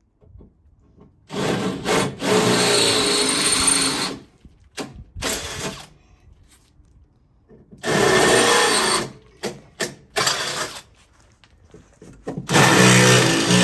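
Power drill running in three bursts of a few seconds each, its motor pitch shifting under load, with short clicks and knocks in the gaps between.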